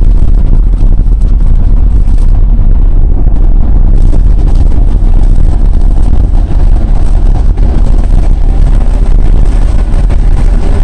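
Street traffic on a rain-soaked road: a steady, heavy low rumble and hiss of cars and tyres on wet tarmac, as loud as the recording goes.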